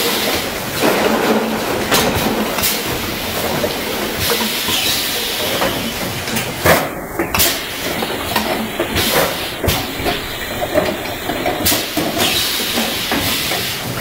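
Automatic inline piston filling machine and its bottle conveyor running: a steady hiss with irregular sharp clacks and knocks.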